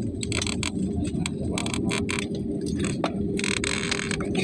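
Jet airliner cabin noise on the landing rollout: a steady low rumble from the engines and wheels on the runway with a steady hum, overlaid by many sharp clicks and rattles, and a brief hiss about three and a half seconds in.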